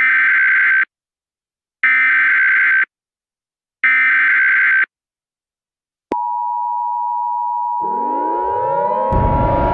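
Emergency Alert System SAME header: three harsh digital data bursts of about a second each, a second apart. About six seconds in, the steady two-tone EAS attention signal starts. Near the end a siren winds up, rising in pitch over the tone, and a deep rumble joins it.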